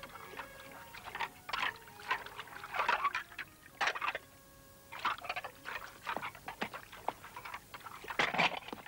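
Plates being washed by hand in a wooden tub of water: ceramic plates clinking and knocking together with splashing water, in irregular bursts about once a second.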